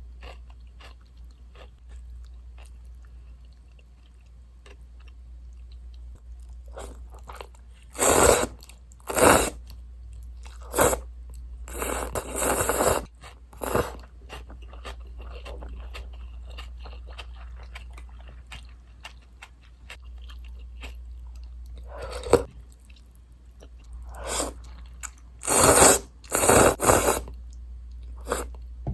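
Close-miked eating of instant miso ramen with butter and corn: quiet chewing throughout, broken by loud short slurps in two clusters, one about a third of the way in and one near the end.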